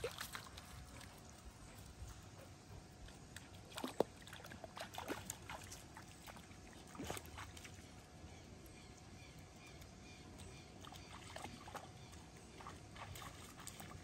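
Dog wading in a shallow, muddy water tank: soft sloshing and a few small splashes, the sharpest about four, five and seven seconds in, as it stirs up the mud.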